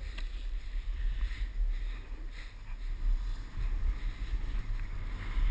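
Wind rumbling on the microphone at riding speed, with the repeated hiss and scrape of edges carving over packed snow.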